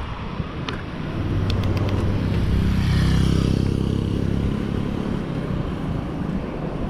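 A motorcycle overtaking a moving bicycle: its engine grows louder to a peak about three seconds in, then fades as it pulls ahead, over road and wind noise.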